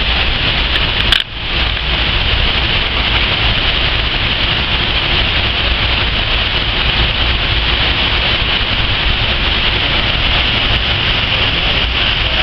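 Waterfall water rushing in a steady, loud roar, with a brief break about a second in.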